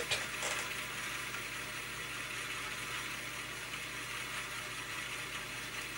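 Faint steady whir of a Commodore 1571 floppy drive's exposed mechanism spinning a disk while its upper head reads an alignment test track.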